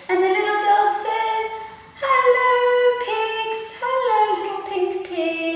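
A woman's voice singing unaccompanied: three phrases of about two seconds each, with long held notes that step down in pitch.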